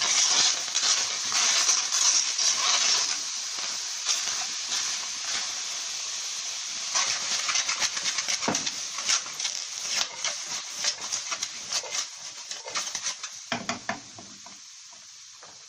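Shrimp, onions and sliced vegetables sizzling in a frying pan, loudest in the first few seconds, with sharp crackles and pops through the middle, settling to a quieter sizzle near the end.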